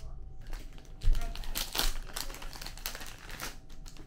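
Plastic and paper sachet packaging rustling and crinkling as coffee and tea packets are picked through and handled, with scattered clicks and a dull knock about a second in.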